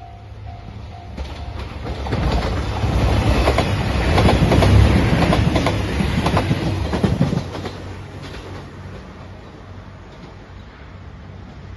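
JR Shikoku 2700-series diesel limited express passing close by a level crossing. The crossing bell dings for the first second or two. The train's engines and wheels then build to a loud pass with clickety-clack over rail joints in the middle, and fade as it moves away.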